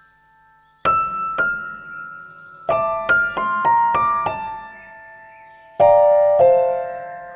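Slow, gentle piano music: single notes about a second in, a short run of quicker notes around three seconds, then fuller chords near the end, each note left to ring and fade.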